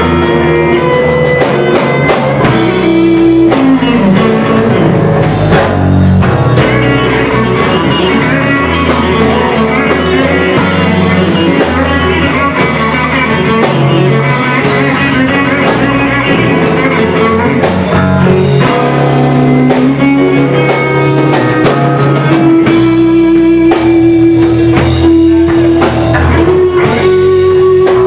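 Live blues band playing an instrumental: two electric guitars over a drum kit. Near the end a lead guitar note is held for several seconds.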